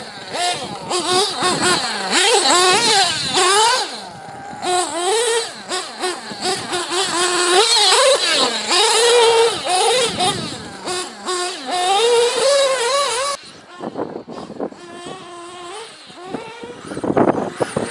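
Small nitro engines of RC truggies revving, a high-pitched whine rising and falling rapidly with the throttle. About thirteen seconds in the sound cuts off abruptly and carries on quieter, with louder bursts near the end.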